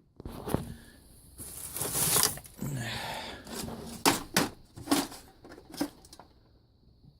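Hand tools being handled in a tool box: a rustle and clatter followed by several sharp clicks and knocks of metal tools.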